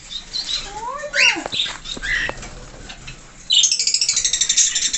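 A single drawn-out, meow-like call that rises and falls about a second in, then a couple of short chirps. From about three and a half seconds in comes a loud, rapid, high-pitched chatter of small birds.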